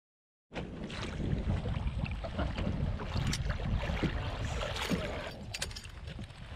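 Wind buffeting the microphone over lapping and splashing water beside the boat, as a northern pike is scooped into a landing net and lifted aboard. The sound starts abruptly about half a second in.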